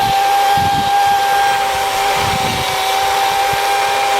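DeWalt 60V cordless electric chainsaw running at full speed: a steady high motor whine over the rush of the spinning chain.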